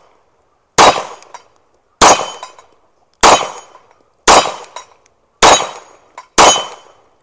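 Six 9 mm pistol shots fired about a second apart at an even pace. Each is followed by a faint metallic ping from steel targets being hit.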